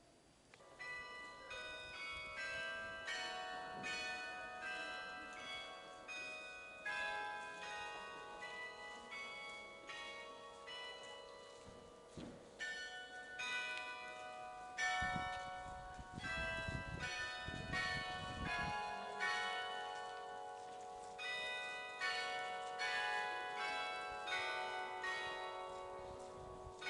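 Church bells pealing: several bells struck in quick, uneven succession, each strike ringing on and overlapping the next, starting about a second in.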